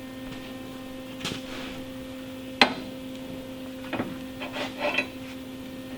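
A steady electrical hum, with one sharp knock about two and a half seconds in and a few lighter taps and clinks of parts being handled.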